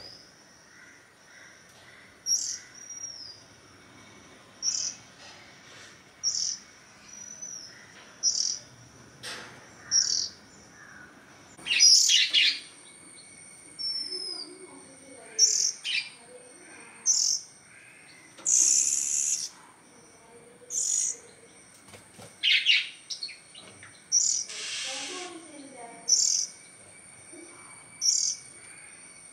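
Oriental magpie-robins, a nestling and its parent, calling. A short high chirp repeats every one and a half to two seconds, and several louder, harsh rasping bursts of up to about a second come in among the chirps.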